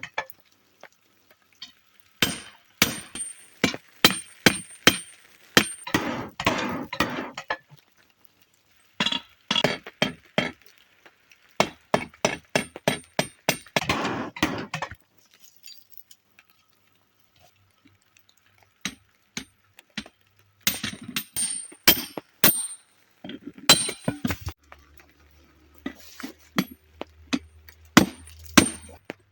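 Hammer striking metal, in fast runs of ringing blows separated by short pauses, as when forging iron on an anvil.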